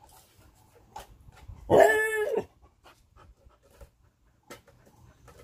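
A dog gives one pitched, drawn-out cry, lasting under a second, about two seconds in. Faint scattered ticks sit around it.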